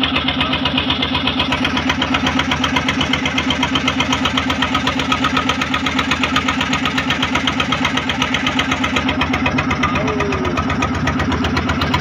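A boat's inboard engine running steadily at an even speed, with a rapid regular pulse.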